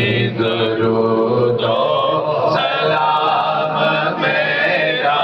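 A group of men and boys chanting a devotional hymn together in unison, their voices held on long notes without a break.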